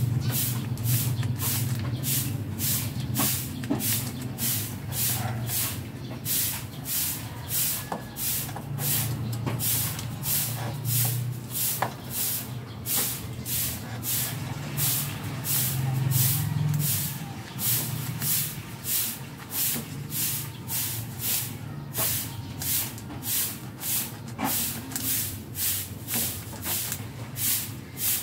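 Low steady mains hum from the arc welder's transformer, swelling and fading, under a rhythmic hissing scrape repeating about twice a second.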